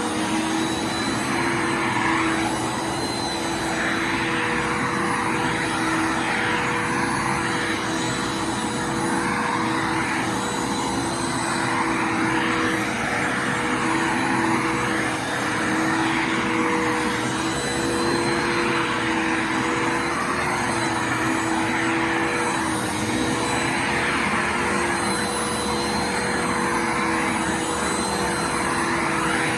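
Bissell Lift-off Multi Cyclonic Pet upright vacuum cleaner running steadily with a constant motor whine. Its rushing airflow swells and fades about every two seconds as it is pushed back and forth.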